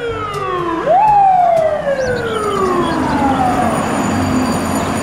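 Fire truck siren: a falling tone at first, then about a second in it climbs sharply and slides slowly down in pitch over the next couple of seconds, with street traffic noise underneath.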